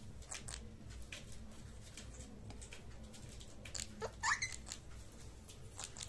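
Indian ringneck parakeet making a scatter of small clicks and taps, with one short rising squeak about four seconds in.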